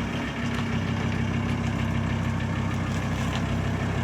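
Vehicle engine idling steadily, an even low hum.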